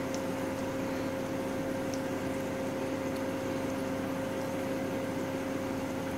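Steady hum of an electric induction cooktop running, a constant low tone with fan noise behind it.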